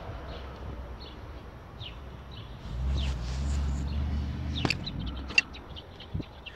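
Birds chirping in the background while a wrench works on the water pump bolts, with a couple of sharp metallic clicks past the middle. A low rumble swells in about halfway through and lasts a couple of seconds.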